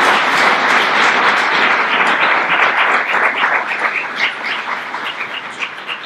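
Audience applauding, loudest at first, then thinning out into scattered claps toward the end.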